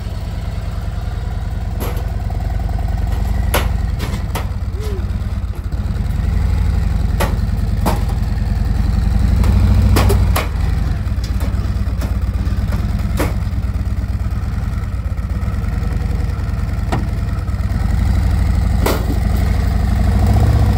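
Harley-Davidson touring motorcycle's V-twin engine running and being throttled up as the bike is ridden up a loading ramp into a pickup bed. The engine swells louder around the middle and again near the end, with scattered sharp metal clanks.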